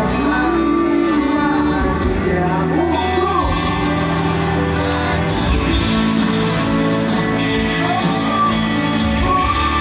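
Live pop-rock band playing a slow song through a concert PA, with a sung melody over steady bass and band backing, heard from within the crowd.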